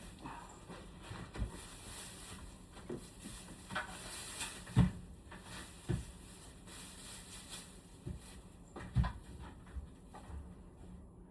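Irregular knocks and clunks of parts being handled during air-conditioner cleaning, about eight in all, the loudest about five seconds in.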